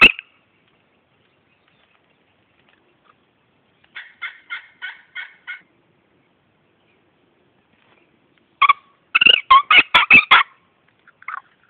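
Turkey gobbles: a faint run of about seven quick notes about four seconds in, then a louder, rapid run of gobbling notes near the end.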